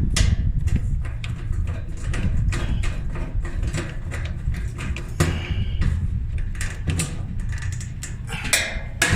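Clicks, knocks and short scrapes of metal dryer panels, brackets and screws being handled and fitted, over a steady low rumble.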